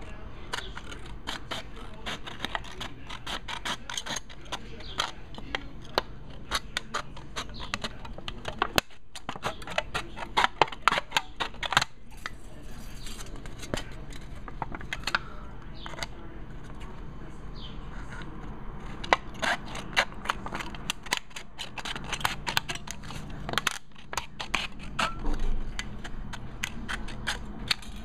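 Scissors snipping the jagged edges off a thin aluminium pop-can sheet, with the metal crinkling: runs of quick sharp clicks and crackles, broken by a few short pauses between cuts.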